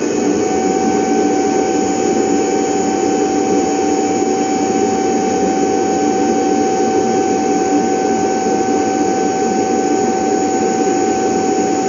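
Vacuum motor running at full speed with a loud, steady high whine over a dense rushing noise, having just spun up. It cuts off abruptly near the end.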